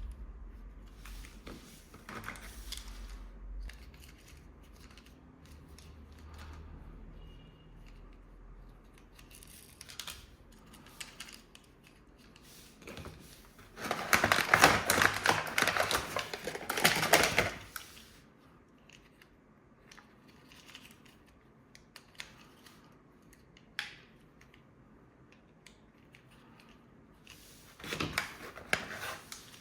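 Toy packaging being handled and unpacked: plastic rustling in a dense burst of about four seconds midway and a shorter one near the end, with scattered clicks and taps in between.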